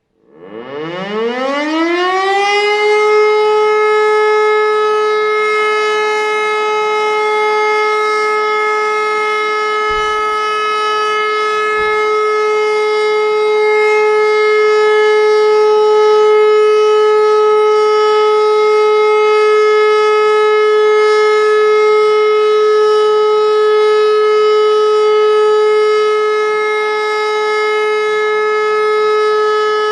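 E57 electro-mechanical civil defence siren winding up from silence, rising in pitch over about two and a half seconds, then holding one steady tone. This continuous tone is the all-clear (Entwarnung) signal.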